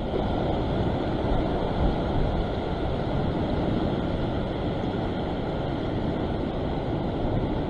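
Ocean surf washing and surging against a rock ledge, a steady rushing noise with wind rumbling on the microphone.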